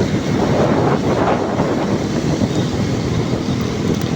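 Steady wind buffeting on the microphone and road rumble from a moving motorcycle.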